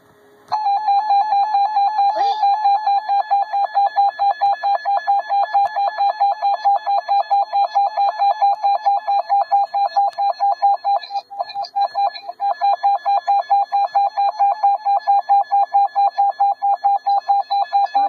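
Weather radio receiver's alert alarm: a loud, rapidly pulsing high beep that starts about half a second in and keeps going, signalling a tornado watch.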